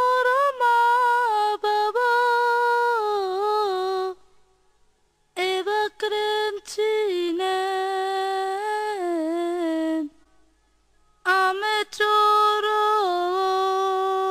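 A lone high voice singing unaccompanied: three slow phrases of long held notes that step downward, with short pauses between them.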